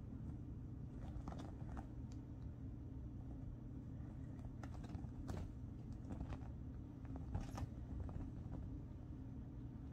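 A kitten's paws scuffling and tapping on a quilted bedspread as it pounces on a small toy: faint scattered rustles and light taps over a steady low hum.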